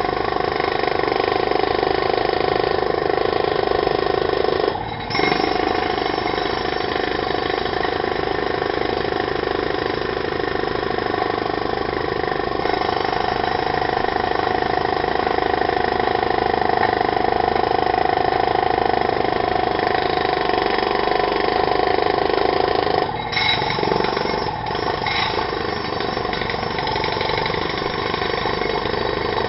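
Pneumatic drill (jackhammer) running continuously, breaking off briefly about five seconds in and again a little after twenty seconds.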